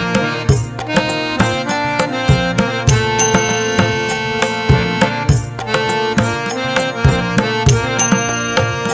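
Background music: an Indian-style instrumental with tabla drumming under a pitched melody, in a steady beat.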